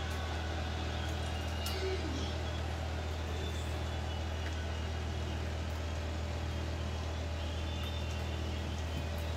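Steady low mechanical hum, like a machine or fan running, with a few faint clicks of small parts being handled.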